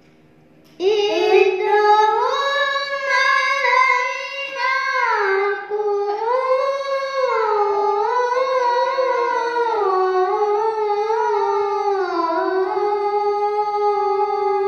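A boy reciting the Quran (tilawah) in maqam Bayati: one long chanted phrase that begins about a second in and slowly rises and falls in ornamented turns.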